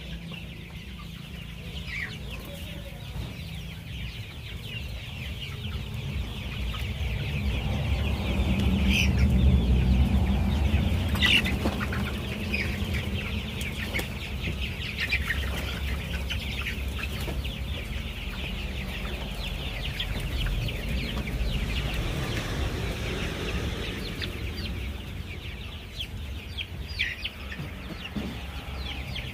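A flock of chickens clucking and cheeping together, many short overlapping calls, over a low rumble that grows loudest about eight to twelve seconds in.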